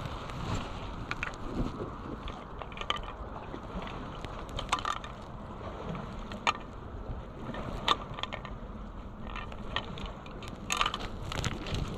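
Irregular clicks and crunches scattered over a steady background hiss.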